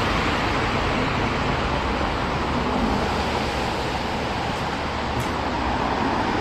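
Steady noise of road traffic heard from inside an underpass, an even sound with no distinct events.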